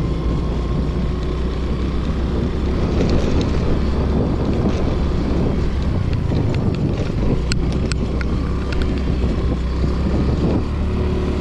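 Scooter engine running steadily under way, with wind buffeting the microphone and a few light clicks and rattles.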